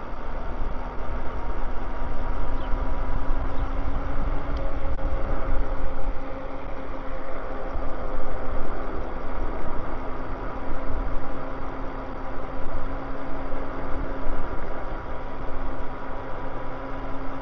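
Electric bikes riding at speed on pavement: wind rumbling across the camera microphone, with a steady electric-motor whine that creeps slightly up in pitch.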